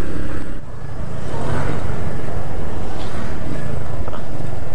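Motorcycle engine running while riding, with wind rushing over the helmet camera's microphone; the level dips briefly about half a second in.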